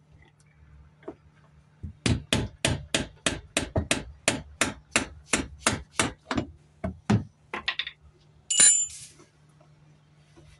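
Hammer striking a chisel against the plastic locking ring of a Mercedes Sprinter's in-tank fuel pump to knock it loose: a quick run of about twenty sharp taps, roughly three a second. It ends with one louder, ringing metal clank.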